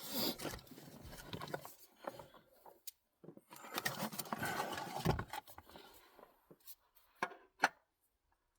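Handling noises: rubbing and rustling in two stretches, then two sharp clicks near the end.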